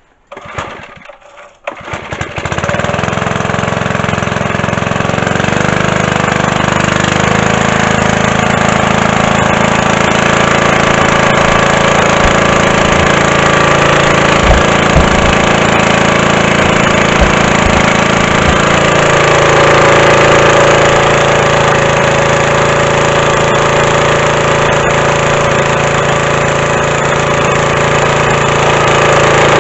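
Small petrol engine of a homemade pressure washer starting: a brief burst, a second short burst, then it catches about two seconds in and runs steadily. Its note changes slightly about nineteen seconds in, with a few low knocks before that.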